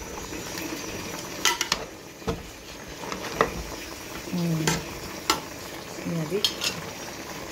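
A metal spoon stirs pork in an aluminium pot, with scattered sharp clinks and scrapes against the pot's side over a steady sizzle. The meat is cooking in its own juices, with no oil or water added.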